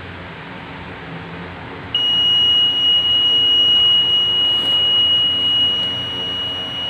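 A rain detector's electronic buzzer begins about two seconds in and holds one continuous, steady high tone. It is sounding because water has reached the rain sensor's circuit board.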